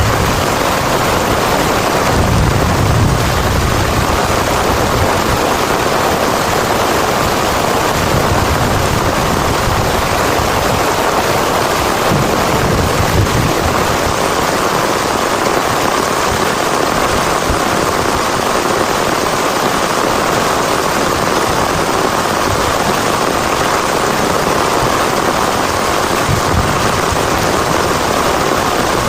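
Heavy rain pouring steadily, with low rumbles during roughly the first dozen seconds.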